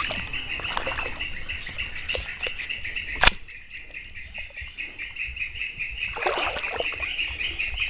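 Someone wading into a shallow river, water splashing around the legs, under a steady, rapidly pulsing chirp from the surrounding forest. A single sharp knock a little over three seconds in.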